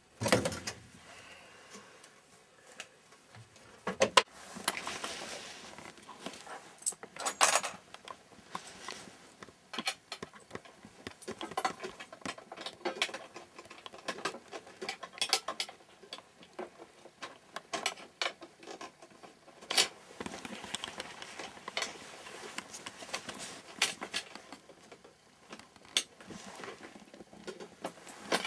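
Hand tools and pipe fittings being handled, with irregular metallic clinks, clicks and clatter and a few sharper knocks.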